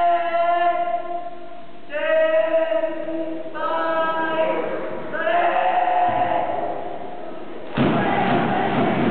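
A large group of junior high students chanting a cheer in unison, calling out "Senpai! Ganbare!" in long, drawn-out held calls one after another. About eight seconds in, a sudden loud burst of noise with thumps breaks in.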